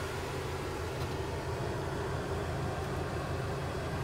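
DAF XF106's 510 hp PACCAR MX-13 straight-six diesel idling steadily, heard from inside the cab as an even low rumble.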